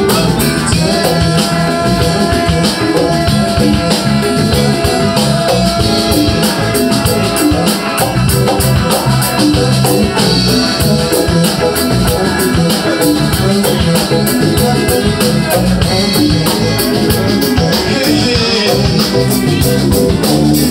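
A live band playing Latin-style music, with congas, a drum kit, keyboard and electric guitar, and a man singing into a microphone.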